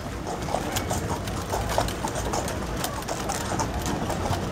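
Horse's hooves clip-clopping on the asphalt as it pulls a century-old buggy, over the low rumble of the buggy rolling along the road.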